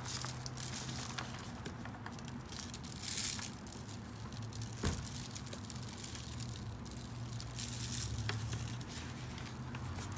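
Dry spice rub shaken from a plastic shaker bottle onto raw beef short ribs, in soft hissing bursts, while a gloved hand handles the meat in a crinkling aluminium foil pan. There is one sharp click about halfway through, and a steady low hum runs underneath.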